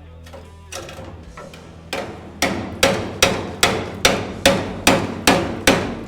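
Hammer striking the car's steel body panel: a couple of lighter taps, then a steady run of about nine sharp blows, roughly two and a half a second, each with a short metallic ring.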